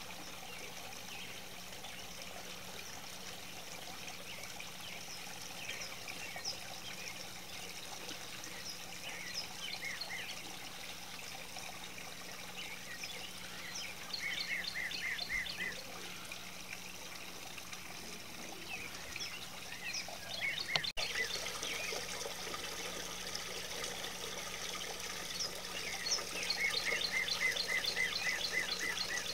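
Water from a small artificial-rock garden waterfall fountain trickling steadily. Birds chirp over it, with a quick run of repeated chirps about halfway through and again near the end.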